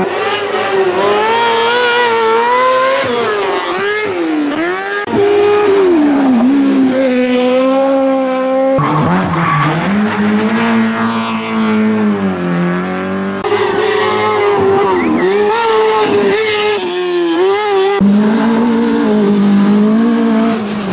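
Rally car engines revving hard and dropping back as several cars in turn shift gears and brake through tight mountain-road bends, each pass cut off abruptly by the next.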